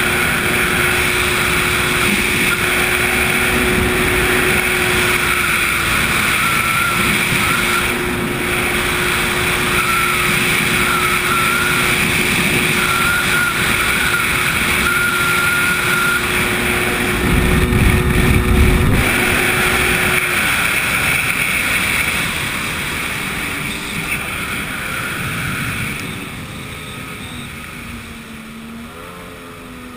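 Jet ski engine running at high speed, a steady drone over the rush of wind and water. A louder low rush comes a little past the middle. In the last few seconds the engine eases off and grows quieter, its pitch lower and wavering.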